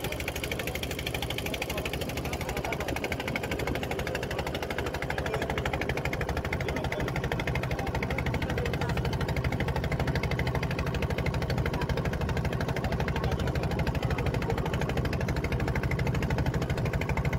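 Engine of a small wooden river boat running steadily with a fast, even chugging, getting a little louder about six seconds in.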